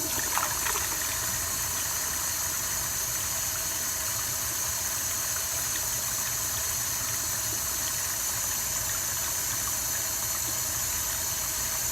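Water from a garden hose running into a 1992 URC open-rim toilet bowl at low pressure, a weak flush. It makes a steady, even hiss of running water that does not change.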